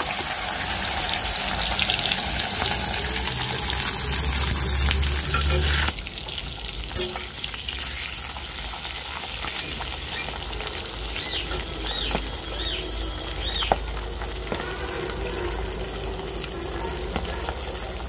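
A whole pomfret sizzling and crackling in hot oil in a metal kadai, just after it was laid in. The frying is louder for about the first six seconds, then drops suddenly to a steadier, quieter sizzle.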